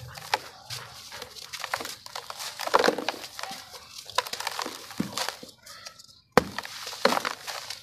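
Dry, gritty sand-and-cement lumps crushed and crumbled by hand, with dense crunching and crackling and the hiss of powder sprinkling down. The sound cuts out briefly about six seconds in.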